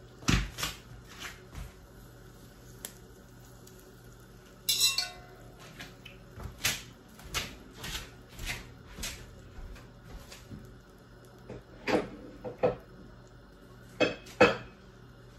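Butter melting in a hot cast-iron wok, crackling and popping at irregular intervals. There is a heavy knock against the pan just after the start.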